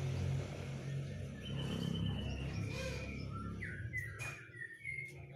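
Caged young male white-rumped shama giving a few short whistled song notes, some sliding in pitch, starting about a second and a half in, over a steady low hum.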